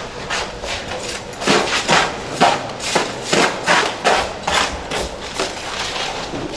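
Hammer blows on a building site, struck irregularly at about two to three a second, some harder than others.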